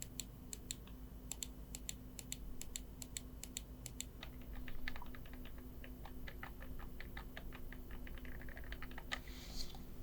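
Rapid clicking of computer mouse buttons: crisp, sharp clicks for about the first four seconds, then softer, duller clicks coming faster.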